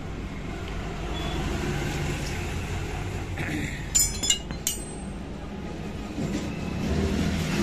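A steady low engine hum runs throughout. About four seconds in come three or four sharp metallic clinks close together, like tools or parts knocking against metal.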